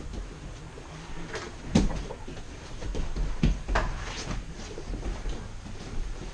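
Grappling on gym mats: thuds and scuffs of bodies, hands and feet hitting the foam, with a few sharp knocks, the loudest about two seconds in and two more a little before and after four seconds.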